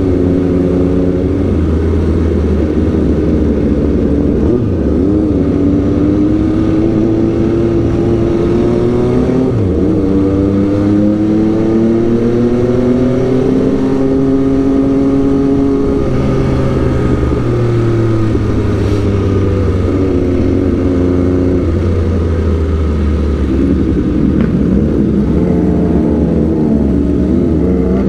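Sport motorcycle engine heard from the rider's seat while riding in city traffic. The engine note climbs gradually to a steady peak around the middle, then drops and wavers with small throttle changes near the end.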